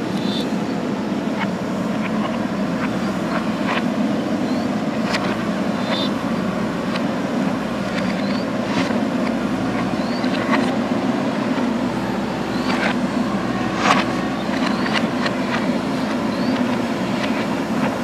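A JCB backhoe loader's diesel engine running steadily under load as the backhoe arm digs and lifts soil, with scattered clanks from the bucket and linkage, the loudest about 14 seconds in.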